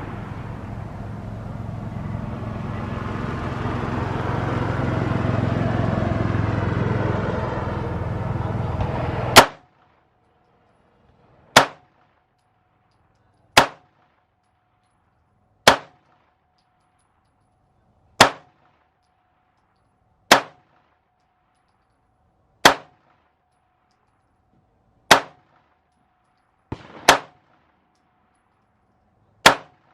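PSA Dagger 9mm pistol fired slowly, about ten single shots roughly two seconds apart, starting about nine seconds in. Before the first shot there is a steady rushing noise.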